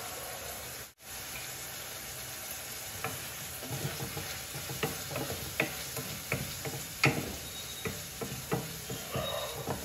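Boiled corn kernels sizzling in olive oil in a kadai, stirred with a wooden spatula. From about three seconds in the spatula gives irregular taps and scrapes against the pan.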